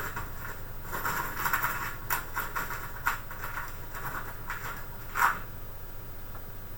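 Hands handling computer parts: a run of scraping and rustling with a few sharp clicks, the loudest click about five seconds in, after which it stops.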